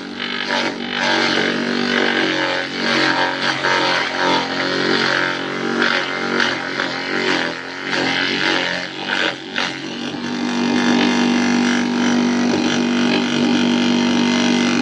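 Wooden chopping machine driven by an electric motor running steadily, its drone wavering irregularly as material goes through. About ten seconds in the drone becomes steadier and louder.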